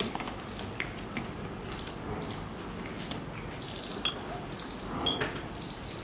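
Murrah buffaloes and a calf moving about in a sandy pen: scattered small knocks and rustles, with short high chirps now and then.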